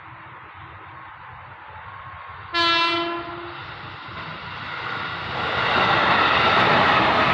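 KRL commuter electric train sounding its horn in one sudden blast of about a second, about two and a half seconds in. The train's running noise then swells as it approaches, from about four seconds in, and stays loud.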